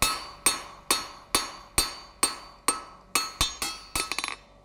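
Blacksmith's hand hammer striking a hot steel bar on an anvil, drawing out a chisel taper: about ten ringing blows at roughly two a second, finishing with a quick run of lighter taps shortly before the end.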